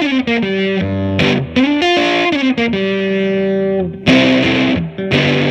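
Electric guitar, a 1957 Gibson ES-225TD on the middle pickup setting with both P-90s, played through an Allston amp set with bass all the way up, treble all the way down and a touch of reverb. It plays single-note lines and chords, with a short break and a fresh chord about four seconds in.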